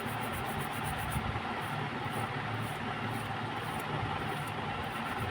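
Faint, quick scrubbing strokes of a brush washing thinner over a freshly soldered display connector on a phone board, fast at first and then about two a second, over a steady low hum.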